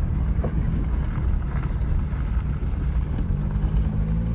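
Car driving along a paved road: steady low engine and road rumble, with wind on the microphone. The engine note grows stronger about three seconds in.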